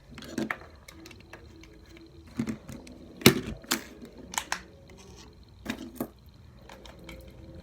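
Irregular clicks and knocks of small objects being handled and set down while a package is put together, with one sharp knock about three seconds in the loudest.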